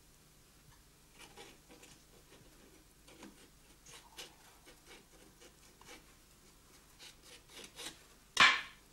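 Kitchen knife working small fish on a wooden cutting board: soft scrapes and light taps as the fish is gutted, then one loud sharp chop of the blade onto the board near the end.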